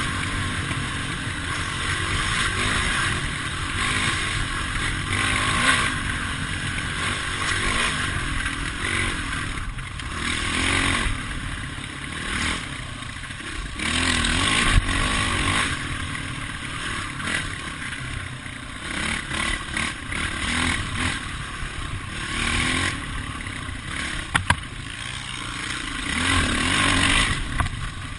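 Dirt bike engine running under way and revving up and down, heard from a camera on the bike, with the clatter of the bike over the trail. A couple of sharp knocks come near the end.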